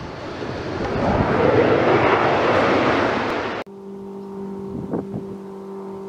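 A loud jet-like whoosh swells up and then cuts off suddenly about three and a half seconds in. It gives way to a quieter steady two-note hum, with wind buffeting the microphone.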